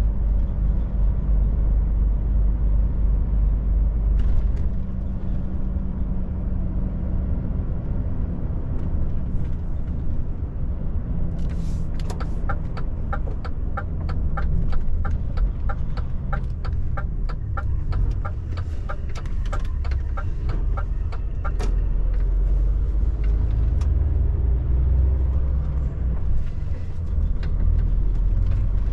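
Cab of a DAF truck on the move: the diesel engine and road noise make a steady low rumble. A short hiss comes about a third of the way in, and then the turn-signal indicator ticks evenly, about two to three ticks a second, for roughly ten seconds before stopping.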